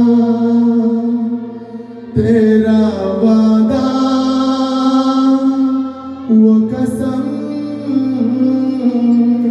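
A man singing a few long held notes into a microphone over a backing music track. This is the close of a Hindi film song.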